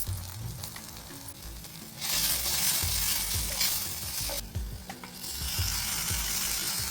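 Food frying in hot oil in a pan, sizzling. The sizzle turns much louder about two seconds in, drops away briefly a little past the middle, then comes back.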